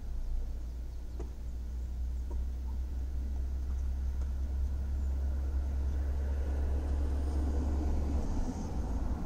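Tennis balls struck by rackets a couple of times in a rally, faint sharp pops over a steady low rumble that briefly lets up near the end.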